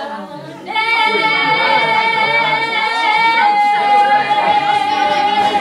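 Woman singing live into a microphone, holding one long note that starts about a second in, drops a little in pitch just past halfway, and is held on.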